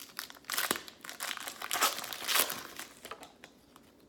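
Plastic wrapper of a trading-card pack crinkling as it is handled and opened, in uneven rustling bursts that are loudest a little past the middle and die away near the end.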